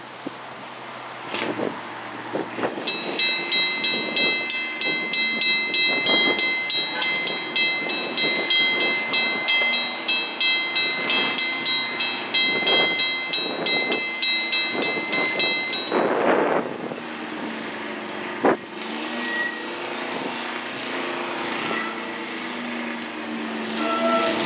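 Railroad grade-crossing warning bell ringing in rapid, even strokes while the crossing gates lower. The bell stops about two-thirds of the way through once the gates are down, leaving a lower, steadier hum with a single knock.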